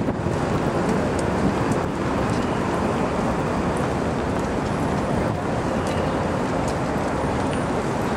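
City street noise: a steady rumble of passing cars and buses on a busy avenue, with a few faint clicks over it.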